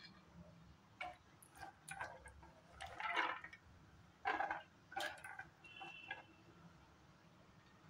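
Wet, soaked chana dal being tipped by hand into a stainless steel mixer-grinder jar: a handful of short, wet rattling pours of lentils against the metal, the loudest about three and four and a half seconds in, with a brief ringing tone from the jar a little before six seconds in.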